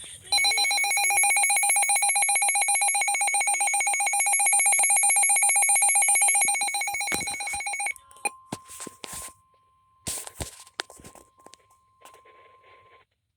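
Emergency alert signal: a loud electronic alert tone, rapidly pulsing in a ringing, bell-like way, lasts about seven and a half seconds and cuts off. A few sharp clicks follow, then a faint steady single-pitch tone for about five seconds: the 1050 Hz weather-radio warning alarm tone heralding a severe thunderstorm warning.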